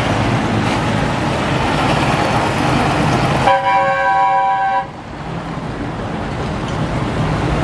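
Tractors' diesel engines running as they drive past, then a tractor horn sounds once, a chord held for over a second, about three and a half seconds in. The engine noise returns quieter afterwards and slowly builds again.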